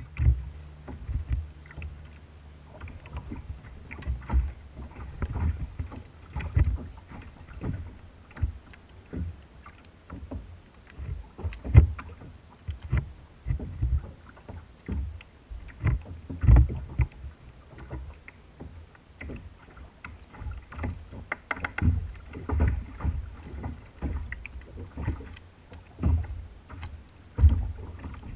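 Small waves slapping and knocking against the hull of a fishing kayak: irregular low thumps every second or two, some sharper than others.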